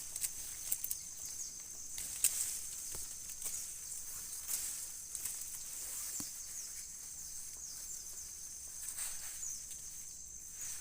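Forest ambience: a steady high insect drone with many short, high, falling chirps from a flock of white-eyes, and a few faint clicks.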